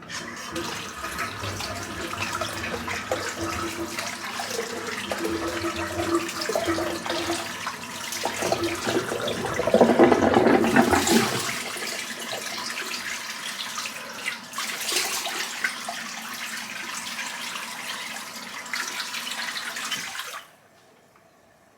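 Water running from a tap into a sink, with heavier splashing about halfway through, as the face is rinsed after the shave; the water stops suddenly near the end.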